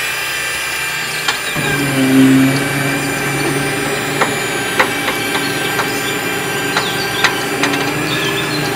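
Yigong remote-control toy excavator driving on its plastic tracks over dirt: steady mechanical whirring with scattered sharp clicks, and a low hum setting in about a second and a half in.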